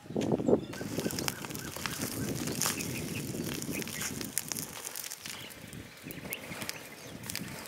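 A live duck flapping and calling, loudest about half a second in.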